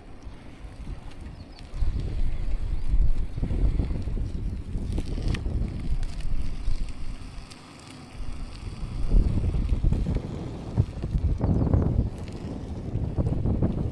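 Wind buffeting the microphone over the rolling rattle of a bicycle being ridden, uneven and gusting, easing briefly a little past halfway.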